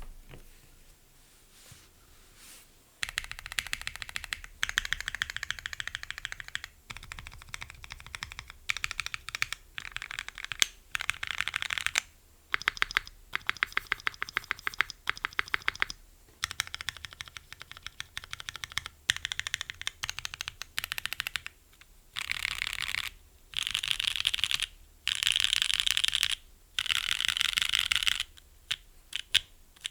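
Custom mechanical keyboard with NovelKeys Cream linear switches, GMK keycaps and an aluminium plate in a gummy o-ring mount, typed on fast in bursts of rapid key clicks with short pauses between, starting about three seconds in.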